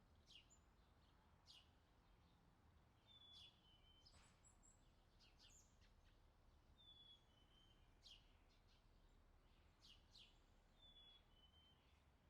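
Faint birdsong over a low background rumble: a two-note whistle, the second note lower, repeats about every four seconds, with short quick chirps between.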